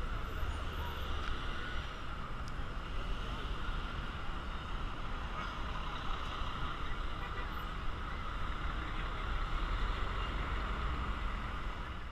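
Busy city street traffic: vehicles such as a double-decker tour bus and cars running past with a steady low rumble, under a constant din of the street.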